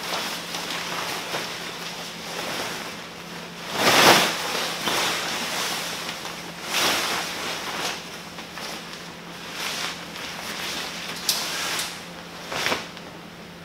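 Pop-up tent canopy fabric rustling and swishing as it is pulled and spread over the steel frame, in uneven swells. The loudest swish comes about four seconds in, and a couple of sharp ticks come near the end.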